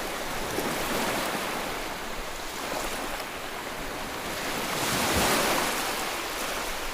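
Ocean waves washing ashore: a steady hiss of surf, with a wave swelling and breaking about five seconds in.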